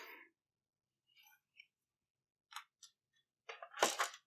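A few faint clicks, then a cluster of sharper clicks and a knock near the end, as small plastic and metal parts of a PlayStation 4 are handled during disassembly.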